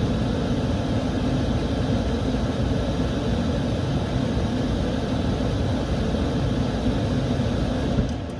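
High-efficiency gas furnace running: a steady, loud rush of air with motor hum. It starts abruptly and falls away near the end.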